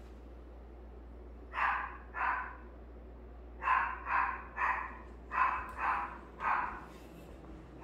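A dog barking: two barks about a second and a half in, then after a short pause six more in quick succession.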